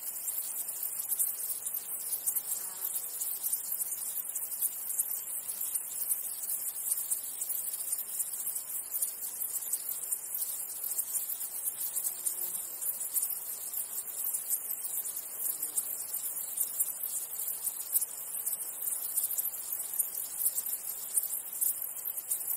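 Dense insect chorus: a steady, very high-pitched chirring that never breaks.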